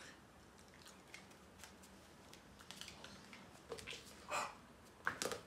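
A young pit bull with kennel cough giving a few short, noisy breaths: one a little after halfway and a quick cluster near the end, after some faint scattered clicks.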